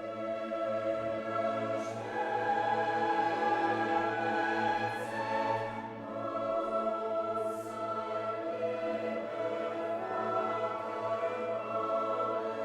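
Background music: a choir singing sustained notes over an orchestra.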